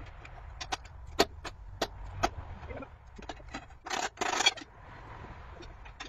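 Scattered sharp clicks and knocks, then a short scraping rasp about four seconds in, from work on the steel lattice mast, over a low wind rumble.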